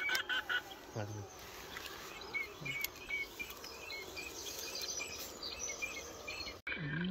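Faint outdoor bird calls: a run of short chirps repeated several times through the middle, with a sharp break near the end.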